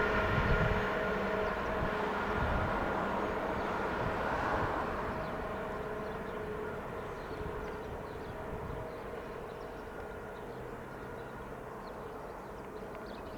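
Train running past and moving away, its rumble fading steadily, with several steady high tones like a wheel squeal sounding over the running noise and dying away with it.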